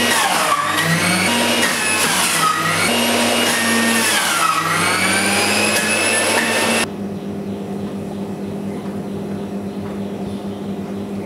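Electric centrifugal juicer running as orange is pushed down its feed chute, the motor's whine dipping and rising in pitch under the load. It cuts off abruptly about seven seconds in, leaving a lower steady hum.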